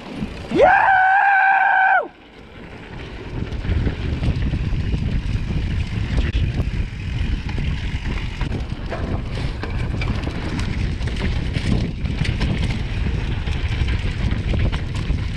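A loud, high 'Yeah!' yell about half a second in, rising then held for about a second and a half. After it, wind rushing over the microphone and mountain bike tyres rolling down a dirt trail make a steady rumble, with scattered knocks from the bike over bumps.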